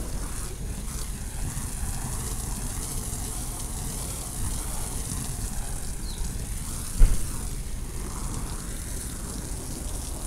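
Steady outdoor background noise, a low rumble under a high hiss, with a single short knock about seven seconds in.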